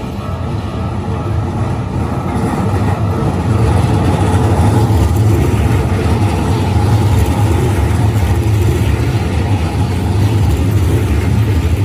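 Steady low rumble of heavy vehicles passing a level crossing, growing louder over the first few seconds and then holding.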